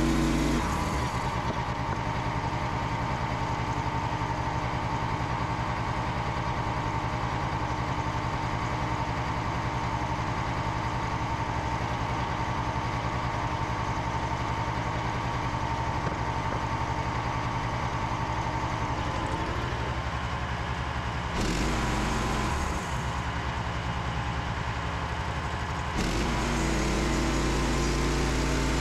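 Frontier OS27 portable bandsaw mill running steadily under its engine. The engine note drops and steadies about a second in, shifts briefly around two-thirds of the way through, and picks back up near the end.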